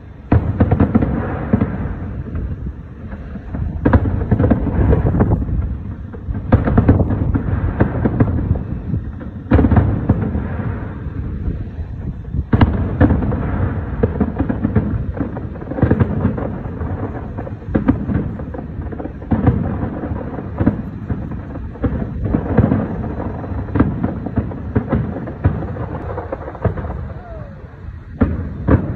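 Fireworks display with many aerial shells bursting in quick succession: a near-continuous run of booms and sharp pops over a constant low rumble.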